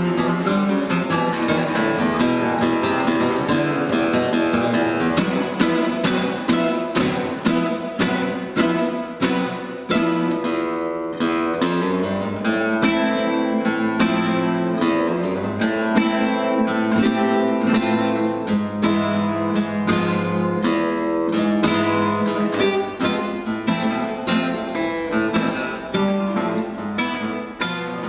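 Two nylon-string classical guitars playing a duet, a lively piece of quick plucked notes and chords.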